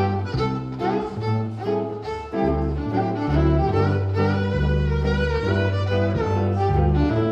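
A small band playing an instrumental break, a melody lead carried over a low bass line whose notes change about every half second.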